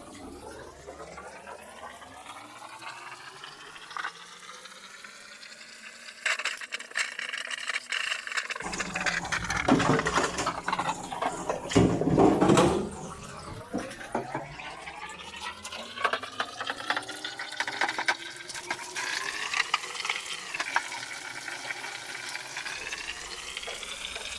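Water running from a tap into a container, with a hollow ringing pitch that slowly rises and falls as the vessel fills and moves. There is heavier splashing about ten to thirteen seconds in.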